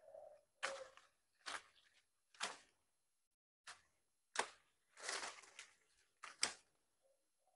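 Bypass pruning shears snipping through grapevine shoots: a series of short, sharp snips at an uneven pace, roughly one a second, with a quick pair near the end.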